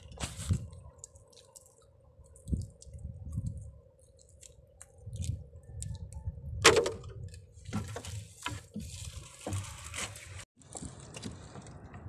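Wet fishing net being hauled by hand over the side of a small outrigger canoe: water dripping and splashing off the net, the mesh slapping and rustling into the hull, with irregular knocks and one sharp knock and splash about two-thirds of the way through. A faint steady hum runs underneath.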